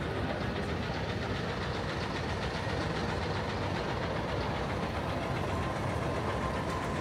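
Steady city street noise with vehicle engines running.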